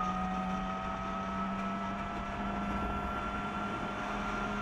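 Yamaha R6 sport bike's inline-four engine running at steady cruising revs, an even drone that holds one pitch, with a thin high whine above it.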